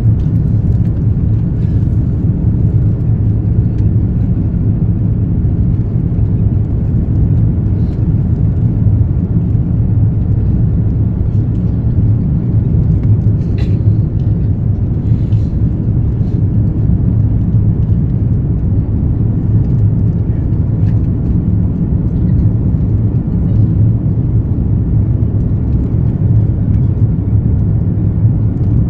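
Steady, loud low drone of airliner cabin noise: jet engines and airflow heard from inside the passenger cabin, with a few faint brief ticks.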